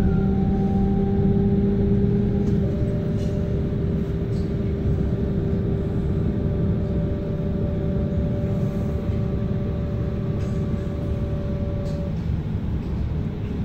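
Interior running noise of a DB class 425 electric multiple unit travelling at speed: a steady rumble of wheels on the rails with several steady humming tones from the train, whose pitch changes about two and a half seconds in and which stop near the end.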